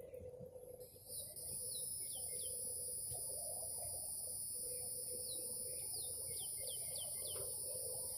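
Outdoor ambience: a steady high-pitched insect trill starts about a second in, and a run of short, falling bird-like chirps sits over it. A faint steady hum lies underneath.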